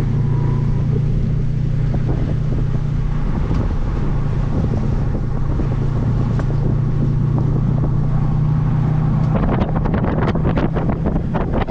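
Audi B7 RS4's 4.2-litre V8 running under way at track speed with a steady drone, under heavy wind noise on the microphone. From about three quarters of the way in, gusts of wind batter the microphone in irregular bursts.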